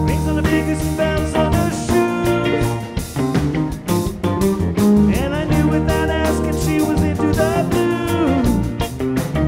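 Live rock band playing: electric and acoustic guitars, bass and drums keeping a steady beat.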